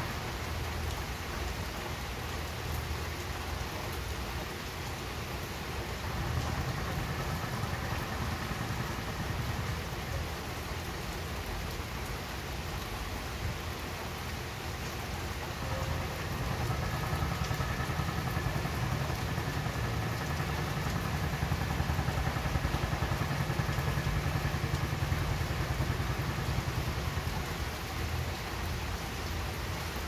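Steady rainfall, an even hiss of drops falling on surfaces, with a low continuous rumble underneath that grows a little louder about halfway through.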